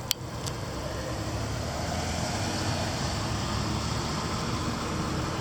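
Steady road-traffic noise, swelling gently about two seconds in as a vehicle passes, with two sharp clicks near the start.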